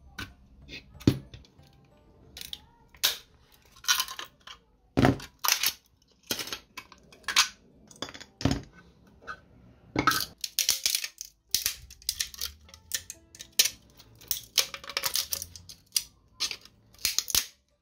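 Irregular sharp clicks and clinks of hard 3D-printed PLA plastic parts being handled and knocked together, coming thick and fast at times.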